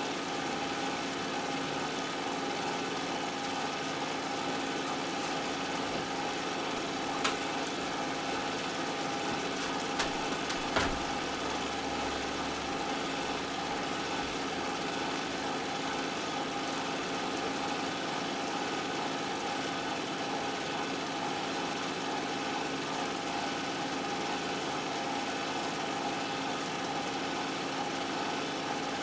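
Steady mechanical hum with a constant tone, unchanging throughout, with a few faint clicks about seven seconds in and again around ten to eleven seconds.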